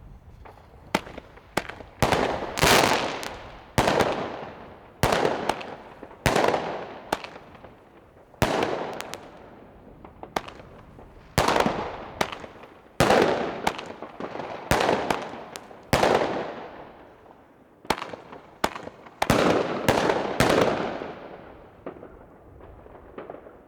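Thunderking firecrackers, linked by their fuses, going off one after another: a string of loud bangs about one to three seconds apart, each followed by a long rolling echo, with smaller sharp cracks in between.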